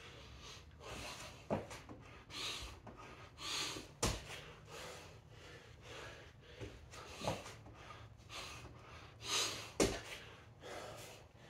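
A man breathing hard from exertion, with repeated loud breaths every second or two. Four short thuds of hands or feet landing on a rubber gym floor come a few seconds apart.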